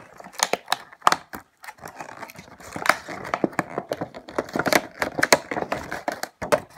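Stiff clear plastic clamshell package being pried open and handled, crinkling and crackling in a dense run of irregular sharp clicks.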